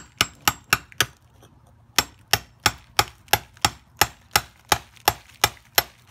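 Metal hammer tapping a steel chisel set against a lava rock, trimming an uneven ridge off it to get it flat: a quick run of five sharp metal clinks, a short pause, then a steady run of about a dozen, about three a second.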